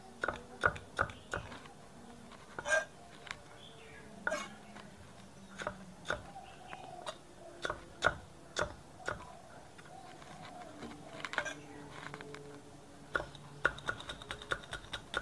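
Kitchen knife chopping ginger into small dice on a thick round wooden chopping block: irregular sharp knocks of the blade on the wood. Near the end comes a quicker run of chops as red chillies are cut.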